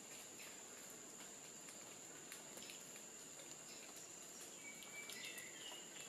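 Faint forest ambience: a steady high-pitched insect drone, with scattered faint clicks and a few short, thin bird notes about five seconds in.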